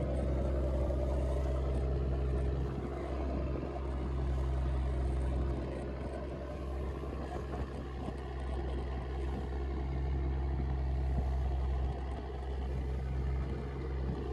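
Fishing boat's engine running steadily under way, a low hum, with the hiss and rush of spray and waves along the hull.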